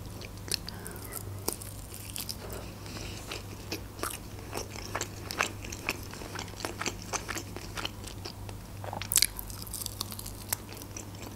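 Chewing a chicken wing in tomato sauce: many small sharp clicks and crackles of chewing throughout, with a louder bite a little after nine seconds in.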